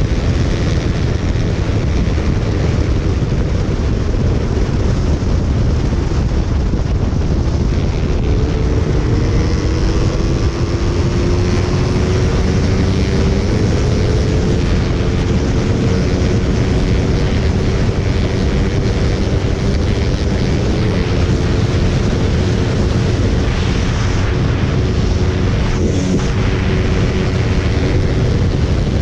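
Suzuki motorcycle at high speed, wind blasting the microphone over a steady engine drone; about a third of the way in the engine note rises slightly as the bike accelerates, then holds steady.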